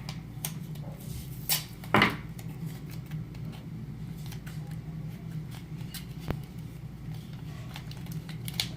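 Paper and sticky tape being handled and taped down: scattered small clicks and rustles, with one sharper crackle about two seconds in, over a steady low hum.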